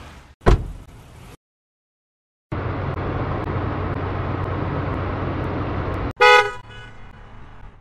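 A single sharp bang, then after a short gap a car running steadily, ending in a short car horn toot followed by a fading tail.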